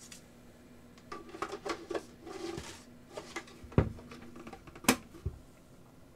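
A floppy disk being swapped in an external floppy drive: a stretch of rattling and sliding handling noise, then two sharp clicks about a second apart as the new disk goes into the drive, and a soft knock.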